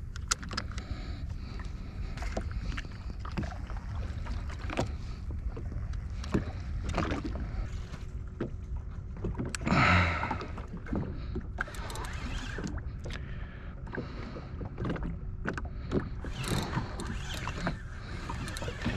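Small waves lapping and slapping irregularly against the hull of a drifting Sea-Doo Fish Pro jet ski, with one louder slap about ten seconds in.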